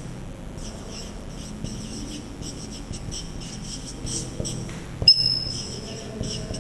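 Marker pen writing on a whiteboard: a run of short, scratchy high squeaks, one with each stroke. About five seconds in comes a sharp tap, then a steady high squeak lasting about a second.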